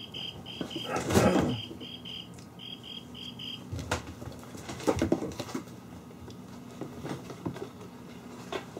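Kittens scampering and pouncing on a wooden floor, with a loud scuffle about a second in and a few knocks a few seconds later. A rapid high chirping, about three chirps a second, runs through the first half and then stops.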